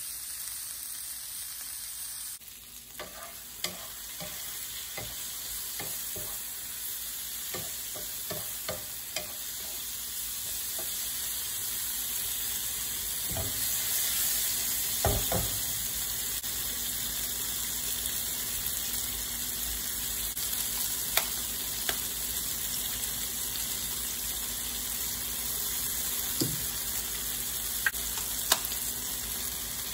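Vegetables sizzling steadily as they fry in olive oil in a frying pan, with a wooden spatula knocking against the pan now and then as they are stirred. Near the end, two sharp taps as an egg is cracked against a knife over the pan.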